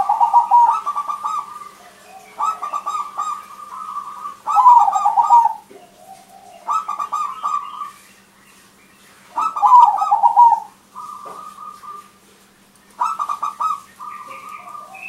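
Crossbred zebra dove (perkutut) singing: about six loud phrases of rapid, stuttering coos, each lasting about a second, repeated every two to three seconds.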